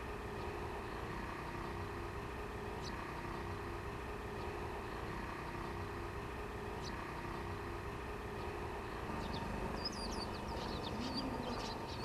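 KiHa 40 series diesel railcar idling steadily while standing at the platform, with birds chirping over it from about three-quarters of the way in.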